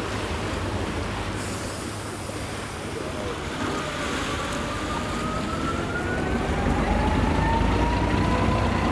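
Passenger excursion ship's engine running with a steady low drone over the wash of water, growing louder as the stern passes close by, with a faint high tone slowly rising in pitch in the second half.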